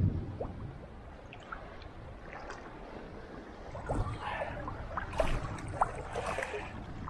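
Sea water sloshing and splashing around a person wading chest-deep, with wind buffeting the microphone. The splashing gets busier about halfway through.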